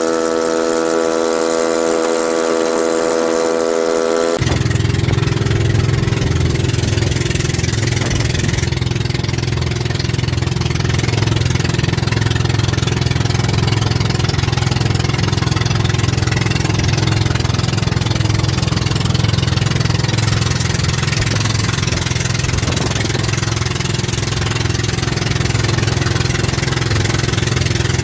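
A held chord of steady tones, then, about four seconds in, an engine starts running steadily and keeps an even drone.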